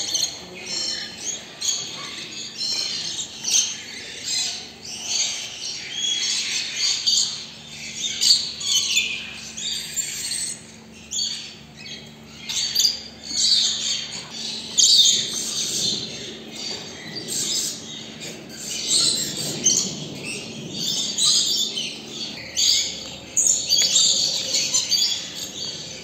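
A flock of small parrots chattering, with overlapping shrill squawks and chirps that come in quick irregular bursts and rise and fall in loudness.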